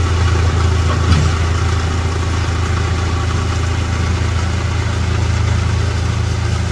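Tractor diesel engine running steadily while its rear rotary tiller churns through mud and water in a flooded paddy field, with one brief knock about a second in.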